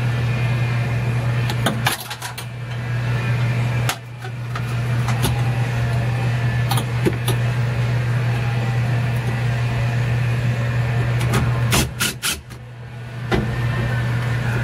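Steady low machine hum that cuts out briefly about two seconds in, again about four seconds in, and for over a second near the end. A few light metallic clicks come from a hand tool against the machine's sheet metal and fittings.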